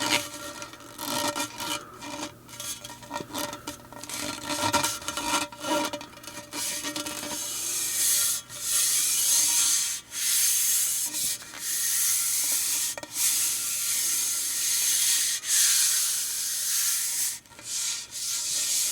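Fuel rod handle being worked: a quick run of clicks and rattles with a faint metallic ring, then, from about halfway, long rasping rubbing strokes of a second or two each.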